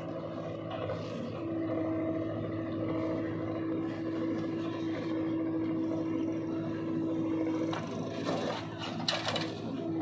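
Diesel engines of a backhoe loader and a Mahindra farm tractor running steadily, with a constant whine over the engine hum. Near the end a few sharp knocks and rattles come as the loaded bucket swings over the tractor's trolley.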